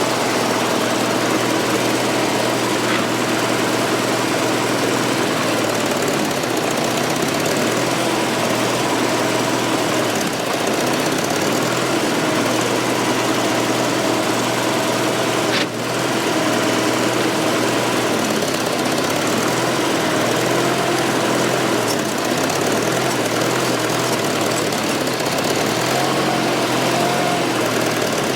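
Fordson Super Major's 3.6-litre diesel engine running steadily, with a brief dip about halfway and the engine speed wavering near the end. It is running poorly, which the owners put down to a loose number 4 injector.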